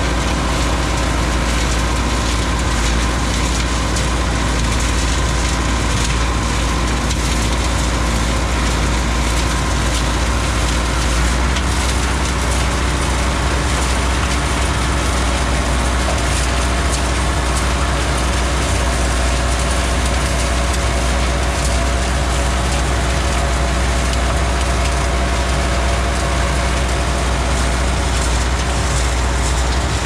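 Combine harvester running steadily at close range, a loud, even engine-and-machinery drone with a deep rumble underneath.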